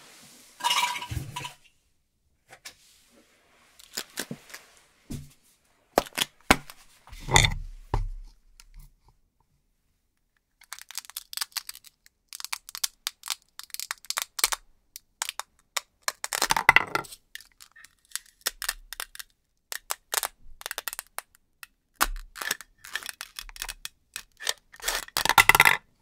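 Velcro-joined toy fruit being cut apart with a knife: sharp clicks and knocks against a wooden cutting board, then longer rasping Velcro tears as the halves are pulled apart.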